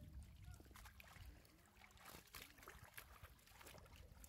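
Faint splashing and trickling of muddy water as a hand scoop net is pushed and lifted through a shallow, mud-bottomed pond, with scattered small clicks and sloshes.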